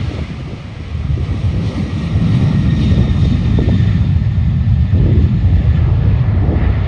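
Boeing 737-800's CFM56-7B jet engines at takeoff power: a loud low rumble that swells about a second in and holds, with a faint high whine on top.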